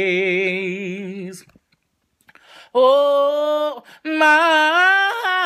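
One voice singing a slow worship song unaccompanied. A long held note with vibrato ('praise') ends about a second and a half in. After a short pause come two more drawn-out sung notes ('Oh'), the last one gliding upward. The singer says they are congested from pollen.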